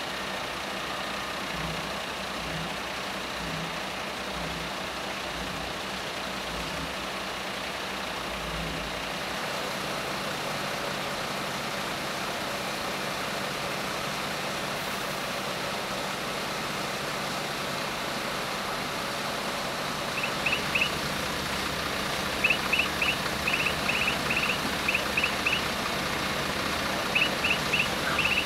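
Steady engine noise of fire engines running at a fire scene. In the last third, short high chirps come in quick little groups.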